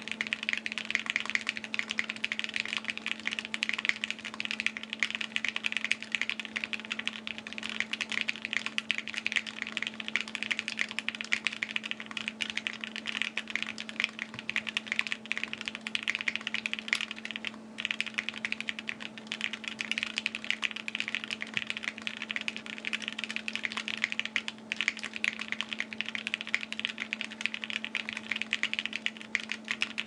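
Fast, continuous typing on a Wind X mechanical keyboard with Gateron KS3 switches, a carbon fiber plate and GMK keycaps: a dense stream of keystroke clacks, broken by a couple of brief pauses in the second half, over a steady low hum.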